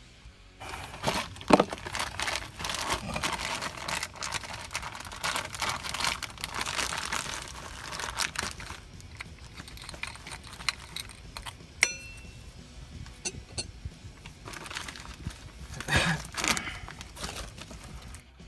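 Plastic packaging crinkling and rustling as a bag holding a new part is torn open and handled, in bursts, with a single sharp click partway through.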